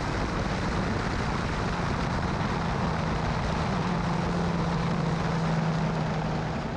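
Onboard sound of a Ford-powered F2000 formula car at speed: a steady engine drone under heavy wind and rushing noise, beginning to fade near the end.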